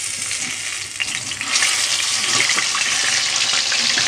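Rohu fish pieces deep-frying in hot oil in a kadai, a crackling sizzle that swells louder about one and a half seconds in as the turned pieces go back into the oil.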